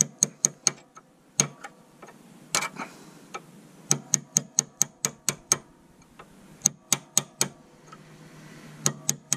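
Sharp metallic taps of a hammer on a steel drift, driving the long engine mounting bolt out of a Piaggio Vespa GTS. The taps come in short runs of a few at a time, about two or three a second, with pauses between runs.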